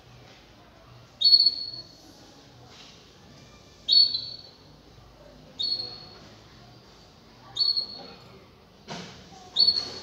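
Caged canaries calling: five short, loud, high chirps, spaced about two seconds apart, with a single light knock just before the last one.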